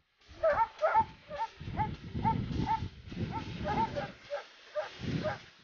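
Dobermann barking repeatedly at a bite sleeve held out to it, about two to three short, fairly high-pitched barks a second, a sign of an excited, driven dog. A low rumbling noise runs beneath the barks.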